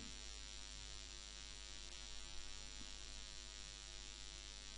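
Faint steady electrical mains hum with hiss, a stack of even buzzing tones from the recording chain. It is the background noise of a desktop recording between narration.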